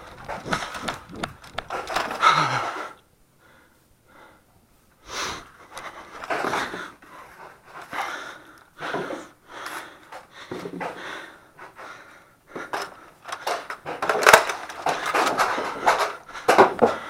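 A person breathing hard in uneven gusts close to the microphone, with handling and movement noise, falling almost silent for a couple of seconds about three seconds in.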